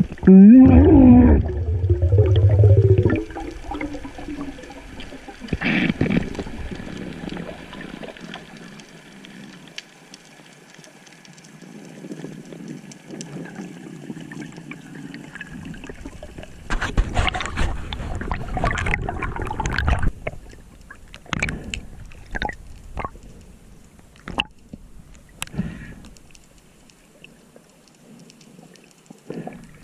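Sea water sloshing and gurgling, loudest near the start with a low rumble, with a louder rush of splashing a little past halfway and scattered small knocks.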